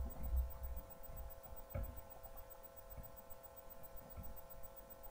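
A steady electrical hum, with soft low thumps in the first second and a single knock just under two seconds in.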